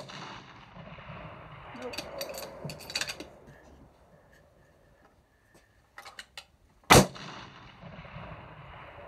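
Rifle fire at a long-range target: a shot's report rolling away in echoes at the start, then a second loud rifle shot about seven seconds in that also trails off in echo. A few light clicks come between the two shots.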